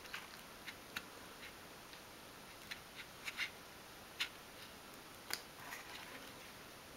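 Faint, irregular light clicks and taps as miniature food packets are pressed onto a small wooden cupboard shelf with a piece of dowel.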